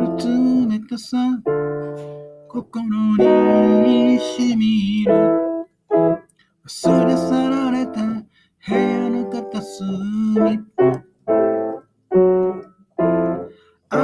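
Piano played with both hands: sustained chords and melody of a slow song's introduction, before any singing. The phrases are broken by several short silent gaps.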